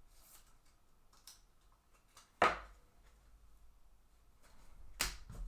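Trading card packs and cards handled on a table: faint scratching and rustling, with two sharp taps about two and a half seconds apart.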